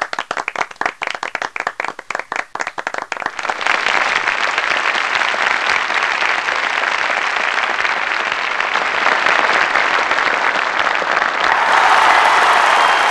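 Applause from a crowd: separate, scattered claps at first, thickening after about three and a half seconds into dense, steady applause that grows louder near the end.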